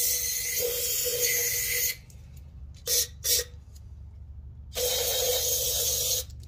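Aerosol parts cleaner sprayed from a can onto diesel heater parts: a long hissing spray that stops about two seconds in, two short puffs around the middle, then another spray of about a second and a half near the end.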